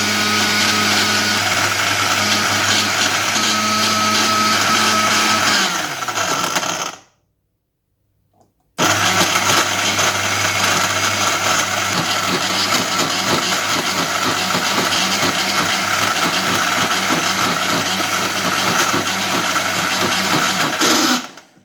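Countertop blender running on lime pieces and water. It runs twice, about seven seconds and then about twelve seconds, with a short pause between in which the motor winds down.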